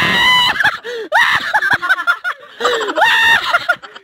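A person screaming in fright in high-pitched shrieks: a long scream at the start and another about three seconds in, with shorter yelps between.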